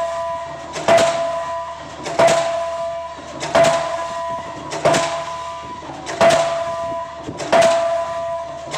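K35 diesel pile hammer driving a concrete pile: a heavy blow about every 1.3 seconds, six in a row at an even pace, over a steady tone that brightens at each blow.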